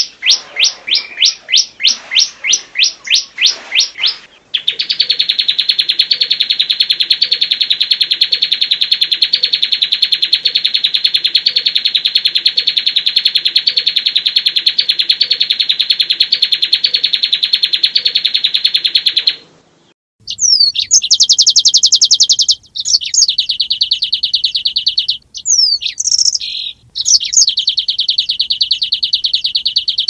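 Recorded songbird song: a run of fast, repeated downward-sweeping chirps, then one long unbroken high rolling trill lasting about fifteen seconds, and after a short break more fast high trills interrupted by brief pauses. This is the kind of long-rolling 'masteran' song played to cage birds to teach them.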